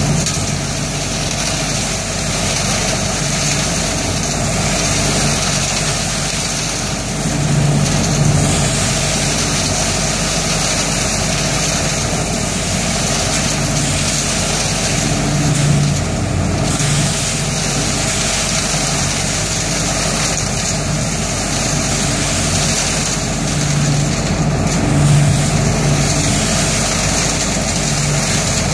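ODB 650 trailer-mounted leaf vacuum running steadily, its engine and fan pulling raked leaves up the intake hose and blowing them into the truck box. The low hum swells briefly every several seconds.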